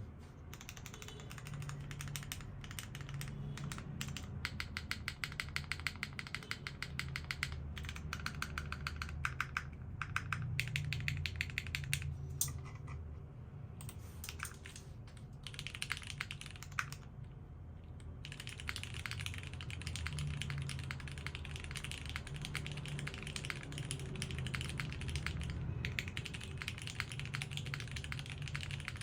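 Typing on a Kyukon 80 custom mechanical keyboard with modded Cherry Hyperglide brown tactile switches, a polycarbonate plate, case foam and GMK keycaps. It is a steady stream of keystrokes in fast bursts, with a few short pauses, picked up by a phone microphone.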